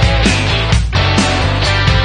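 Background rock music with guitar over a steady beat of about two strokes a second.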